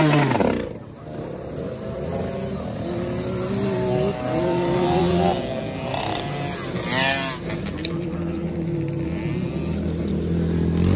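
Dirt bike engines revving on a motocross track. One loud bike falls away about a second in, then other engines rise and fall in pitch, with a quick rev-up and drop around seven seconds in.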